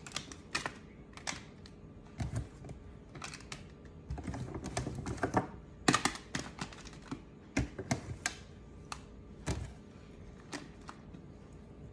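Raw potato chunks dropped by hand, one after another, into a foil-lined baking pan: irregular light clicks and taps on the aluminium foil, some with a soft thud.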